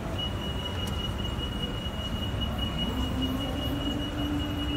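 Inclined moving walkway (travelator) running: a steady high-pitched whine over a low mechanical rumble, with a lower hum joining about halfway through.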